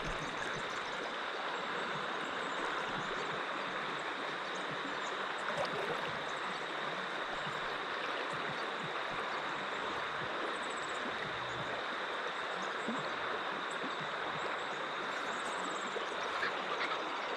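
River water running steadily over stones, a continuous rushing stream.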